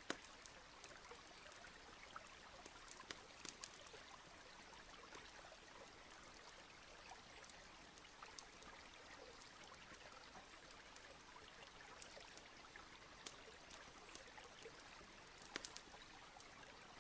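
Near silence: a very faint trickle of running water, with scattered faint ticks.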